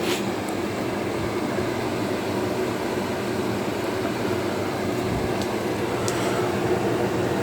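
Vintage KitchenAid by Hobart KDH20 dehumidifier running: a steady motor and compressor hum under an even rush of fan air, with a few faint light ticks.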